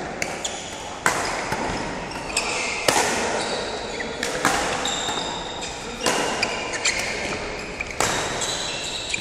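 Badminton rally in an echoing indoor hall: about five sharp racket strikes on the shuttlecock, one every one and a half to two seconds, with short high squeaks of shoes on the court between them.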